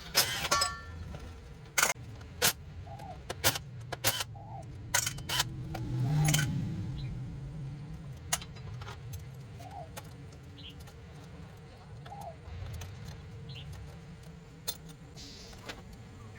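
Irregular sharp metallic clinks and clicks of hand tools and small metal parts being handled, over a low background rumble.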